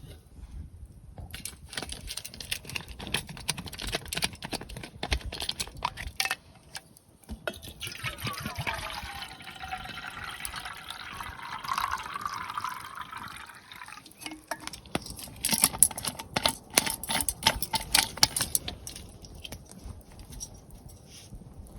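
Water poured into a metal vessel, a rushing pour that rises in pitch as the vessel fills, lasting about six seconds in the middle. Before and after it come scattered clicks and clinks of camp gear being handled.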